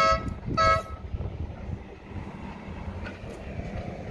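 Locomotive air horn sounding two short blasts in quick succession, over the steady low rumble of a moving train.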